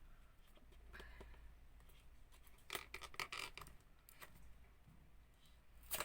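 Faint clicks, scratching and rubbing of a product package being handled and opened, with a short busier burst of scraping about halfway through.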